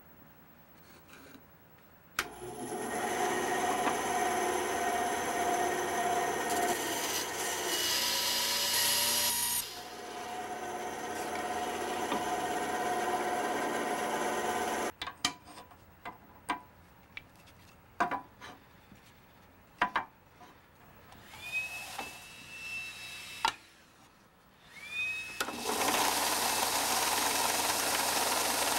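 Bandsaw switched on with a click about two seconds in, running and cutting a wooden board with a steady whine for about thirteen seconds, then stopping abruptly. A few sharp knocks follow, and near the end a belt-and-disc sander starts up and runs.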